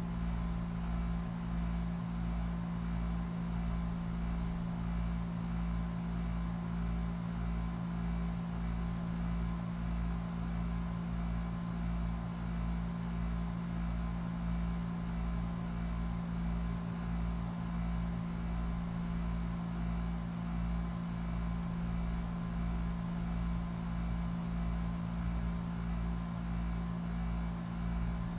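HVAC unit running with a sawing, grinding sound: a steady hum with a low throb that pulses evenly, over and over, without let-up.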